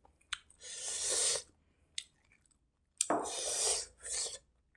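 Wet squishing of a hand mixing rice with curry on a plate, in a few short bursts, with a couple of light clicks.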